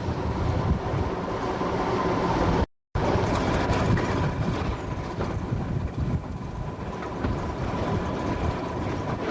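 GER N7 steam tank locomotive running, heard as a rumble under heavy wind buffeting on the microphone. The sound cuts out completely for a moment about three seconds in, then resumes.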